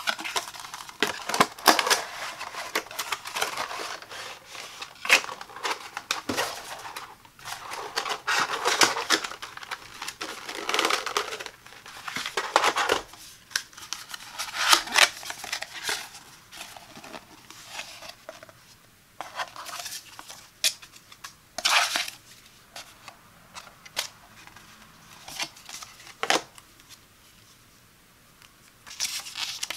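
Hands handling cardboard and paper packaging: a box sliding out of its cardboard sleeve, a folded paper sleeve being opened, and a card manual handled, heard as spells of rustling and scraping broken by sharp taps and clicks, with quieter pauses toward the end.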